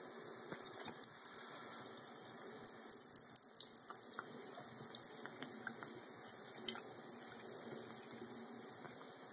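Bathroom sink faucet running steadily, the stream splashing onto a cat's head and into the basin, with a few small drips and splashes, most of them in the first few seconds.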